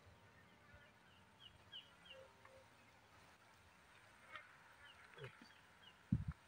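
Faint bird chirps over a near-quiet background: a run of quick descending notes about a second and a half in, and a few more around four to five seconds. A short low thump near the end.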